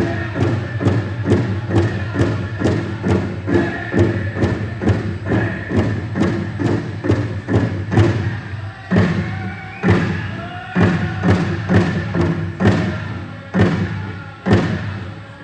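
Powwow drum group song: a large shared drum beaten in a steady, fast beat of about three strokes a second, with the singers' voices chanting over it.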